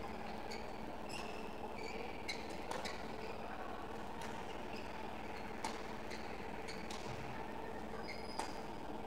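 Badminton play: a handful of sharp racket-on-shuttlecock hits and short, high shoe squeaks on the court floor, spaced irregularly over a steady hum of hall noise. The sharpest hit comes near the end.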